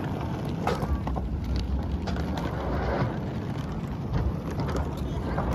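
Hard wheels of rolling suitcases rattling steadily over a dock walkway, a continuous gritty crackle over a low rumble.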